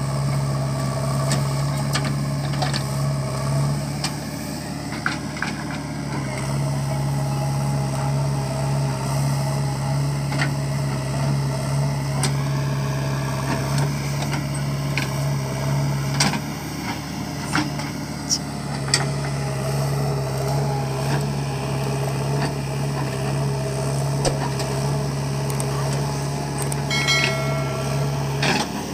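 JCB 3DX backhoe loader's diesel engine running steadily under load while the backhoe digs and swings earth into a tipper truck. Its note drops for a couple of seconds twice. There are occasional sharp knocks as the bucket works and earth drops.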